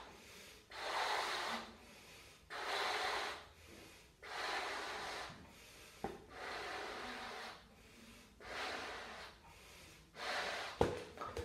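A person blowing up a latex balloon by mouth: about six long breaths are blown into it, each lasting about a second, with short pauses between them.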